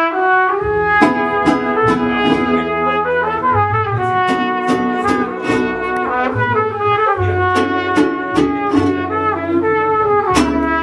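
Mariachi band playing an instrumental passage, with trumpets carrying the melody over a low bass line and a strummed rhythm of evenly repeating chords.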